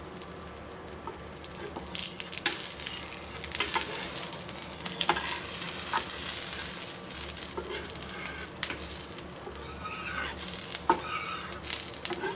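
A thick dosa frying in oil on a hot pan, sizzling with sharp crackles of spattering oil; the sizzle grows louder about two seconds in.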